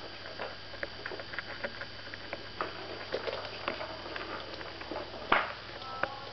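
Kittens playing on a wooden floor: many light, irregular taps and scuffles of paws, claws and toy, with one louder thump about five seconds in.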